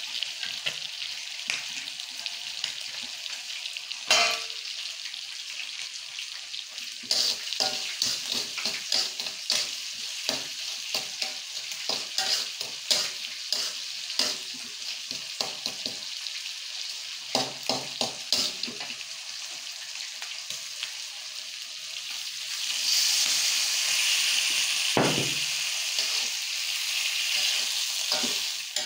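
Tongkol (mackerel tuna) pieces sizzling in spicy chili paste in a metal wok, stirred with a metal spatula that scrapes and taps against the pan. The sizzling grows louder about three-quarters of the way through, with a single knock a couple of seconds later.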